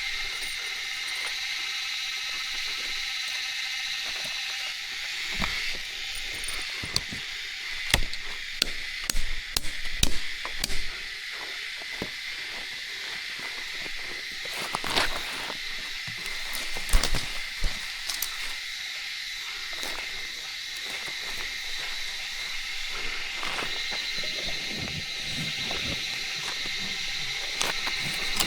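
Steady, high-pitched drone of forest insects, with scattered sharp knocks and snaps in the middle stretch.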